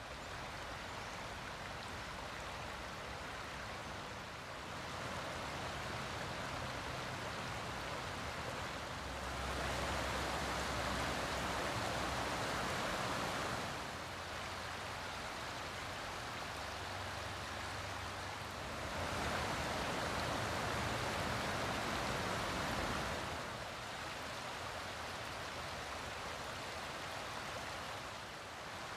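Shallow forest creek running over a rocky bed, a steady rush of water. Its loudness changes abruptly every four to five seconds and is loudest about ten and twenty seconds in.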